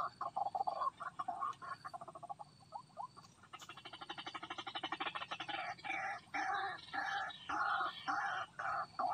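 White-breasted waterhen (ruak-ruak) calling: a run of harsh croaking notes, then a fast rattling stretch of about ten pulses a second, then loud repeated croaks at about two a second.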